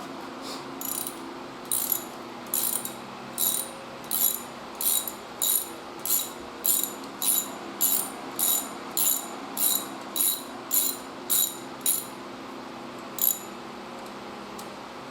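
Socket ratchet wrench clicking in an even rhythm, about one and a half clicks a second, as a spark plug is unscrewed. The clicking stops near the end, with one last click a moment later.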